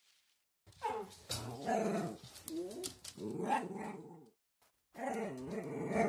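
A dog growling and barking in two stretches, its pitch wavering up and down, with a short break about four and a half seconds in.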